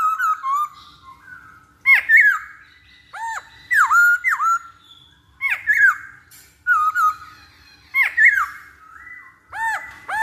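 Black-throated laughingthrush (poksay Hongkong) singing: loud whistled phrases of arching, sliding notes, repeated about every one and a half seconds.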